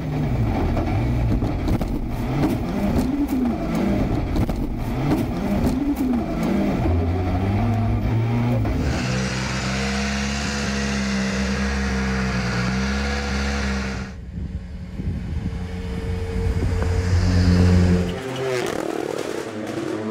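Rally cars' engines revving hard and rising and falling through gear changes, with sharp pops and cracks through the first half. Then a car holds high revs with a loud hiss, and another engine starts revving up near the end.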